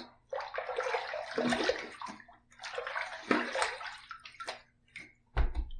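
Water splashing at a bathroom sink while rinsing after a shave: two longer splashing spells, then a few short splashes, and a low thump near the end.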